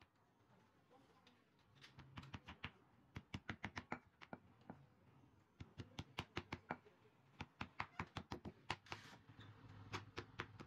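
Bursts of quick knocks as a leather slipper sole is pounded on a work block with the end of a round wooden tool. There are five to eight fast strikes in each burst, with short pauses between bursts.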